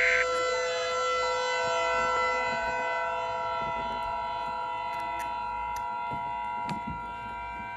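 Emergency Alert System tones. A raspy SAME header data burst cuts off just at the start, then the steady two-tone EAS attention signal sounds from about a second in, over a held electronic drone of several steady tones.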